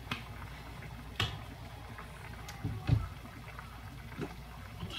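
A few light knocks and clicks from things being handled in the kitchen, over a low steady hum. The loudest is a dull thump about three seconds in.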